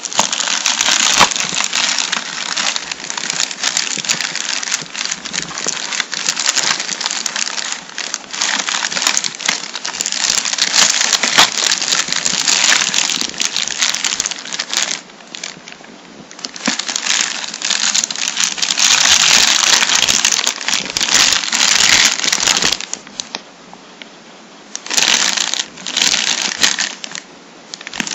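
Clear plastic bags around the router's accessories, including the AC adapter, crinkling loudly as they are handled and lifted out of the box, with two short pauses about halfway and again near the end.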